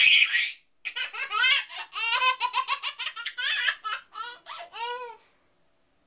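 Baby laughter: a short burst, then a long run of quick laughing pulses that space out and stop about five seconds in.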